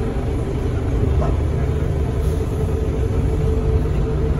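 Bombardier Innovia APM 100 rubber-tyred people mover running along its guideway, heard from inside the car. A steady low rumble carries a steady whine throughout.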